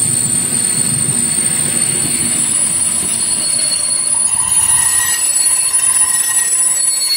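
Passenger coaches rolling past at close range. Their wheels make a steady rumble that fades about halfway through as the last coach goes by. A thin high whine runs throughout, and squealing wheel tones rise in the second half.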